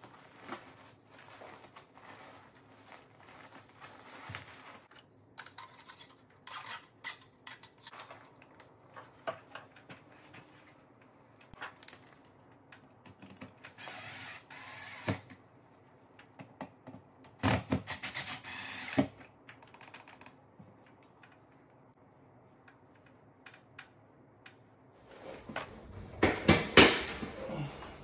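Clicks, creaks and rattles of a metal ceiling supply register being pushed into a flex duct and fastened. There are two short, louder runs about midway, which fit a cordless driver setting the grille's screws, and a spell of louder clattering near the end.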